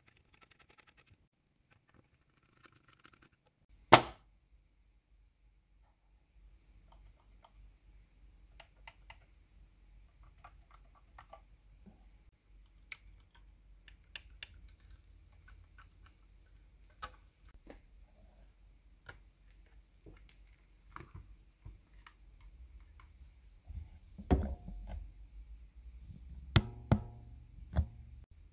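Hands handling small plastic and metal parts of a radio alarm clock: scattered clicks and taps, then a sharp loud click about four seconds in, after which a low hum sets in. Heavier knocks and thunks with a short ring follow near the end.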